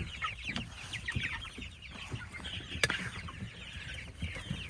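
A brood of month-old Jumbo Cornish Cross meat chicks peeping while they eat, many short falling cheeps overlapping, with one sharp click nearly three seconds in.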